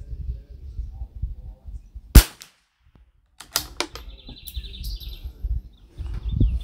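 A single shot from an Anschutz 1761 bolt-action .22 LR rifle firing SK Standard Plus ammunition: one sharp crack about two seconds in, with a brief ringing tail. A few quick clicks follow a second or so later, then a bird chirping in a rapid trill, over a low rumble.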